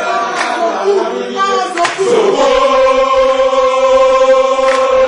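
A group of men chanting in unison. The chant breaks into short phrases, then holds one long note from about two seconds in, with a sharp click twice.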